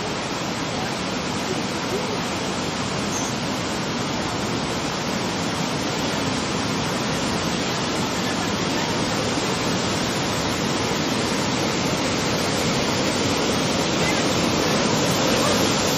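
Tsunami surge water rushing and breaking across the beach shallows: a steady rush of foaming water that swells a little toward the end.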